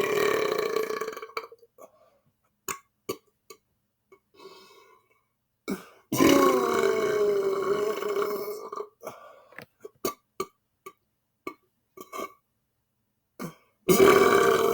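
A man belching loudly and at length. One long belch runs on and ends about a second and a half in, another of about three seconds starts about six seconds in with its pitch dropping at the start, and a third starts near the end. Short clicks are heard between the belches.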